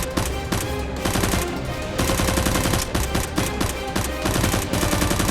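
Rapid volleys of automatic gunfire sound effects, shot after shot, over a background action music track.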